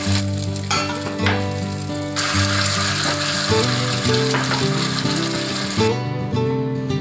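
Beaten egg sizzling in a hot copper tamagoyaki pan over a gas flame as it is stirred with chopsticks, heard over background music with steady low notes. The sizzle stops about six seconds in.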